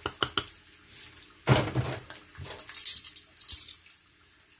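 A plastic salt shaker shaken over a plate in a few quick rattling taps, then a heavier knock about a second and a half in, followed by scattered light clinks of kitchen handling.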